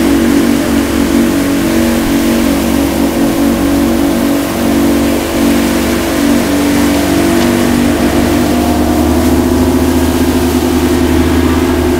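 Twin outboard motors running steadily under way, a loud drone over the rushing of the churned-up wake.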